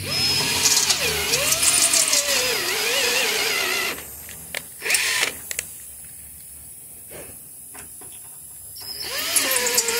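Cordless drill boring out a rusted broken screw, its motor whining with a pitch that wavers as the bit loads up. It stops about four seconds in and gives a short burst a second later. After a few quiet clicks it runs again near the end.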